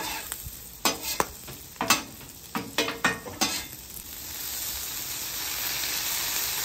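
Metal spatula scraping and clacking on a flat-top griddle, about eight strokes, while sliced peppers, garlic and ginger sizzle in oil. About four seconds in, strained leeks still wet from soaking are tipped onto the griddle and a louder, steady sizzle takes over.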